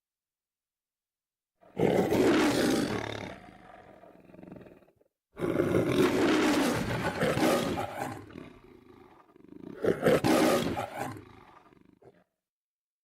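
A lion roaring three times in a row, each roar loud at first and trailing off: the MGM studio's trademarked lion roar.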